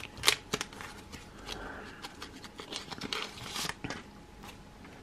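Plastic trading-card pack wrapper crinkling as it is pulled open by hand, with a few sharp crackles near the start and a longer run of crackling about three seconds in as the cards come out.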